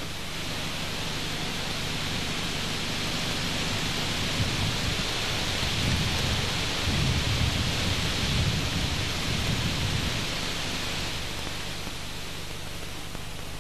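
Wind buffeting an old camcorder's built-in microphone: an uneven low rumble that builds to a gust in the middle, over a steady hiss.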